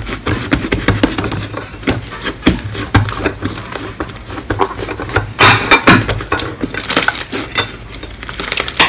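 Slime being squeezed and pressed by hand, making dense, irregular crackling and popping clicks, loudest in a cluster about five to six seconds in.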